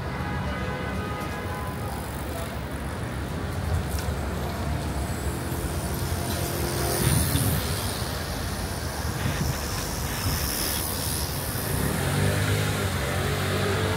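City street traffic: a steady rumble of vehicle engines and tyres, with a louder engine hum near the end.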